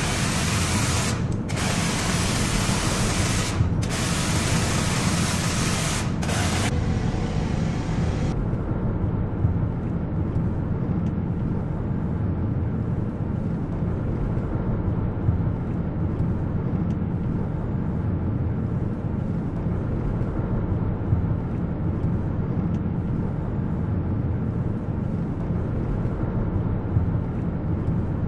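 Hissing spray in several bursts with short breaks, stopping about six seconds in; for the rest a steady low rumble continues.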